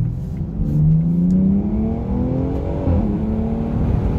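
BMW X3 M Competition's twin-turbo 3.0-litre inline-six accelerating hard, heard from inside the cabin. The engine note climbs in pitch, drops sharply at an upshift about three seconds in, then begins to climb again.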